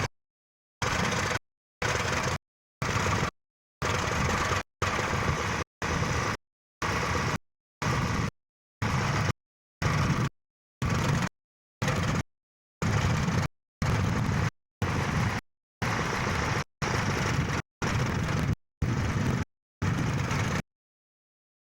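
Tractor engine running, heard only in short chunks of about half a second separated by dead silence roughly once a second: the recording's sound keeps dropping out.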